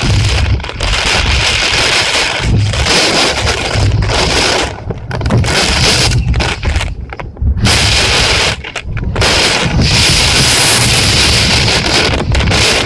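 Heavy typhoon rain pouring down with gusting wind buffeting the microphone, a dense loud hiss over low rumbling that dips briefly several times midway and surges back.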